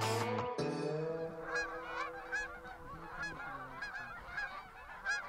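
A flock of Canada geese honking, many short overlapping calls one after another. The tail of a guitar music track fades out under the first calls.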